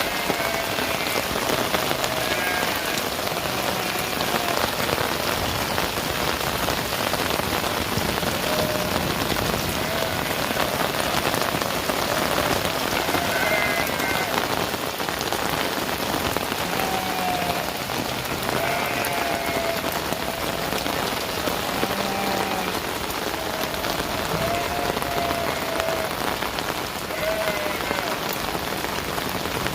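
Heavy rain falling steadily, a dense even hiss of drops on surfaces, with faint short pitched calls every few seconds behind it.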